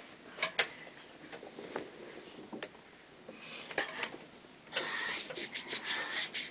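Homemade cloth-and-rope swing hung from a wooden loft bed, worked by someone swinging on it: scattered light clicks and knocks, then from about five seconds in a quick run of rubbing scrapes.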